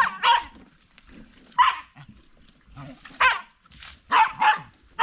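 A dog barking: about six short, sharp barks at irregular intervals, two of them in quick pairs.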